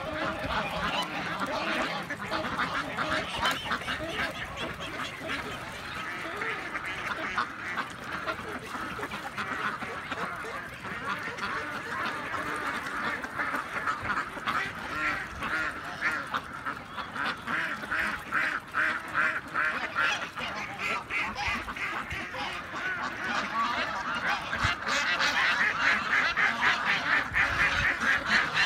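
A large flock of mallards and domestic ducks quacking and calling nonstop as they crowd together to eat scattered corn, a dense, overlapping chorus. The calls become a fast run of many per second about halfway through and grow louder over the last few seconds.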